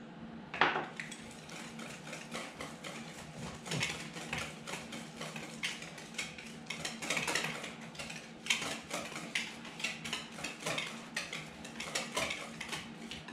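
A utensil clinking and scraping against a mixing bowl in quick, irregular strokes as mashed banana, eggs and oil are stirred by hand; the loudest clink comes about half a second in.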